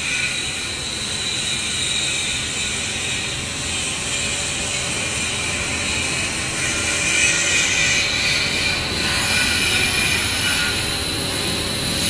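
Cat.6 LAN cable insulation extrusion line running: a steady machine drone with high whining tones, and a hiss that grows louder about halfway through.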